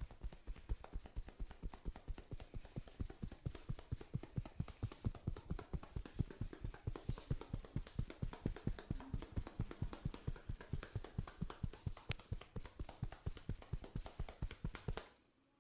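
Massage hammer striking the body in fast, even percussive taps, about five or six a second, stopping abruptly near the end.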